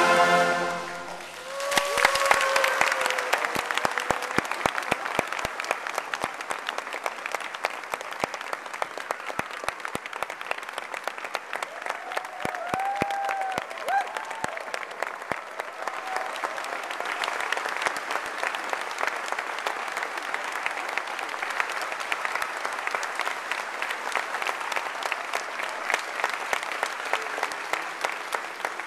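A concert band's final held chord cuts off about a second and a half in, and a large audience breaks into sustained applause. A few shouts and whoops rise above the clapping, around two seconds in and again around twelve to fourteen seconds in.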